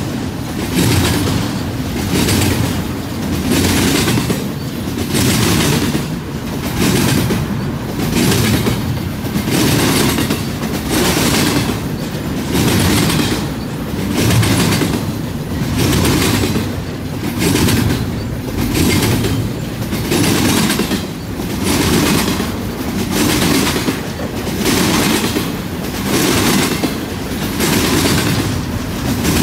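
Double-stack container well cars of a freight train rolling past, steel wheels clattering over the rail with a steady rhythm that swells about every two seconds.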